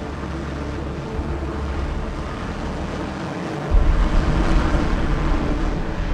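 Jet engine noise from an X-47B drone's turbofan on a carrier deck, a steady rushing hiss. About four seconds in, a deep low rumble comes in and the noise steps up louder as the engine's power rises.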